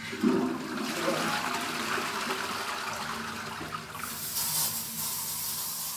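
Toilet flushing, with water rushing into the bowl. About four seconds in, the hiss of an aerosol air-freshener spray joins it.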